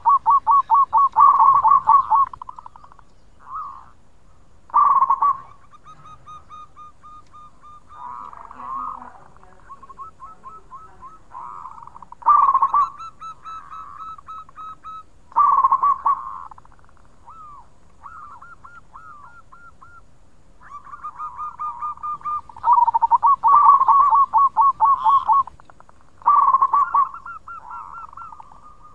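Zebra dove (perkutut) cooing in full song. Its phrases of quick pulsed coos come in loud bursts every few seconds, with softer cooing between them.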